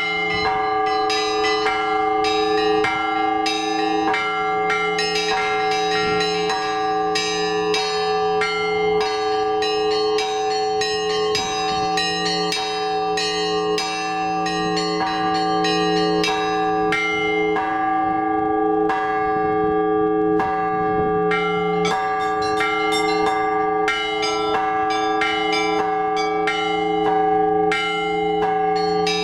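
Orthodox church bells rung by a single ringer (zvon): small, high bells struck rapidly, several strokes a second, over the steady ring of larger, deeper bells.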